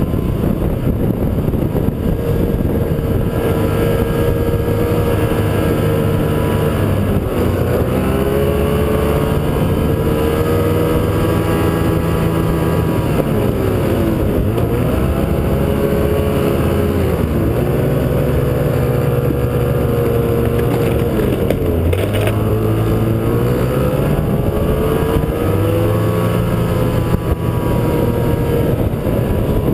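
Snowmobile engine running under way, heard from the machine itself, its pitch falling and rising again about five times as the speed changes.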